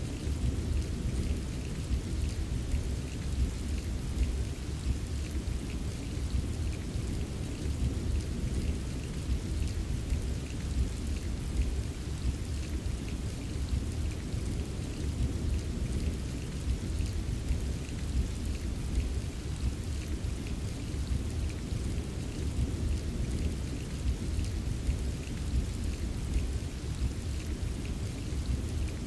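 Steady rain ambience, with many small drop ticks over a deep, continuous low rumble and no distinct thunderclap.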